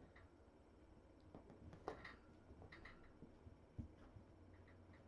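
Faint, scattered taps and scuffles of kittens wrestling and batting a toy on a fleece blanket, with a soft knock about two seconds in and another just before four seconds.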